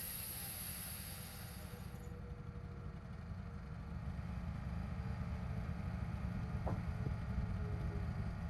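Wood-Mizer LT15 portable band sawmill running steadily, a low, even engine-like drone.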